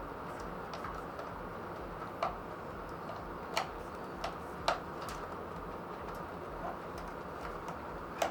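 Light plastic clicks and taps at irregular intervals, about nine in all, from a cable and its connector being handled and pushed into a PC motherboard, over a steady low background hum.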